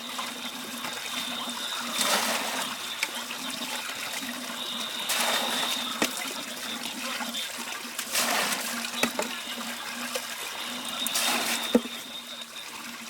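Weeds being cut by hand, a swishing rush of grass about every three seconds, over a steady faint hum.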